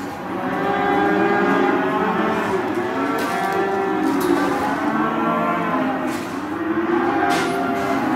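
Many cattle mooing at once, their calls of different pitches overlapping with no break.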